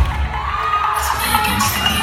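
Audience cheering and shouting over a steady low bass from the live performance.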